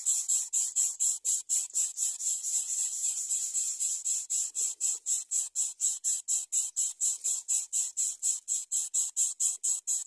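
Insect chirping in a steady, fast rhythm of high-pitched pulses, about four or five a second.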